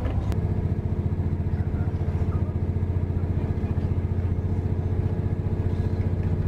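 Diesel train engine running with a steady low throb and a fast, even pulse, heard from inside the carriage. A short click comes just after the start.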